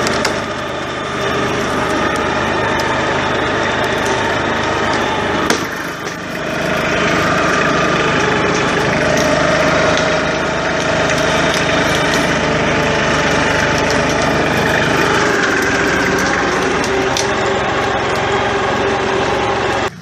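Massey Ferguson 1433 compact tractor's diesel engine running steadily under load while skidding logs. Its note dips briefly about six seconds in and then picks back up.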